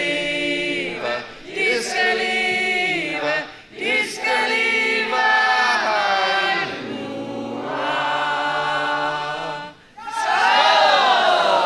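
A group of men and women singing a school song together, in sung phrases with short breaks between them; the last phrase, near the end, is the loudest.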